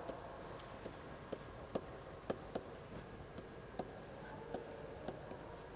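Stylus tapping and clicking on a tablet screen while handwriting a word: about a dozen faint, sharp, irregularly spaced ticks as each letter stroke touches down.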